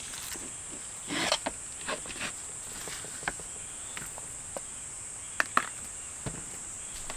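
Steady high-pitched insect song, with scattered light clicks and knocks of things being handled; the loudest is a sharp pair of clicks about five and a half seconds in.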